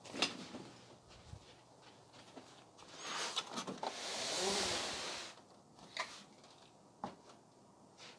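Handling noise: a sharp knock at the start, then a scraping rush about three seconds in that swells and fades over roughly two seconds, followed by two more single knocks.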